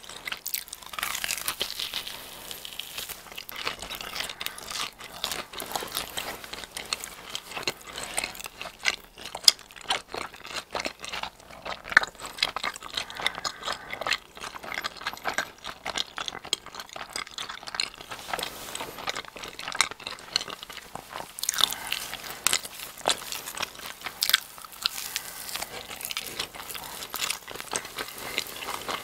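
Close-miked eating of a giant cheese ball, a baked bread ball filled with stretchy cheese: biting into the crust and chewing, with many short clicks and smacks.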